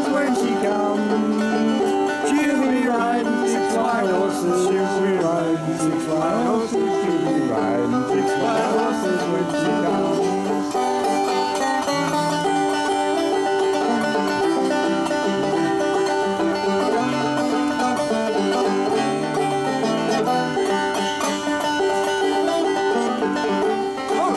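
Five-string banjo played as a continuous, bright, plucked tune in a bluegrass style.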